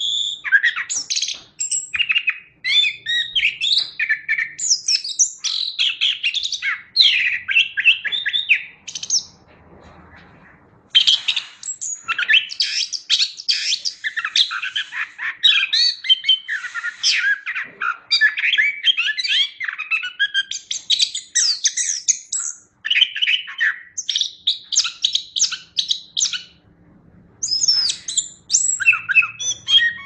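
Chestnut-capped thrush (anis kembang) singing a rapid, varied run of high chirps, trills and whistles, with brief pauses about ten seconds in and again near the end.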